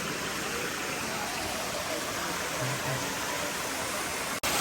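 Waterfall: a steady, even rush of falling water. It drops out for an instant near the end.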